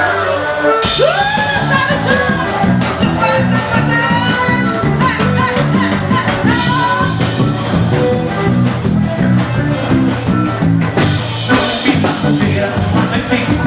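Forró band music: the full band comes in about a second in with a fast, steady beat under a melody line.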